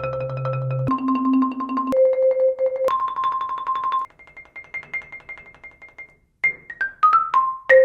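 Marimba played with Marimba One Wave Wrap mallets: a series of rolled notes, each held about a second, with the fifth softer and longer. Near the end comes a quick run of a few falling notes.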